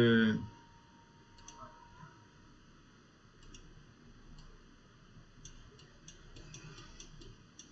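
Faint clicks of a computer mouse, a few scattered single clicks and then a quick run of them near the end, over low room tone.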